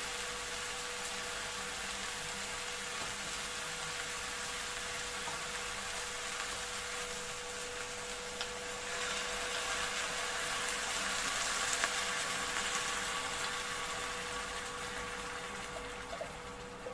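Chicken frying in a pot, hissing steadily, as canned coconut milk is poured in from the can. The hiss grows louder about halfway through as more milk goes into the hot pot, over a steady low hum.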